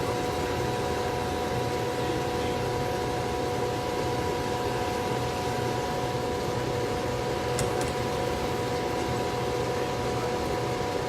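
A machine runs steadily: fan noise like rushing air under a constant electric motor hum with several steady tones.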